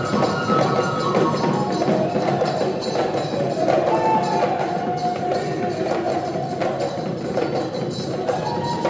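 Live Assamese Bihu folk music: a dense, fast percussion rhythm under a sustained, gliding melody line.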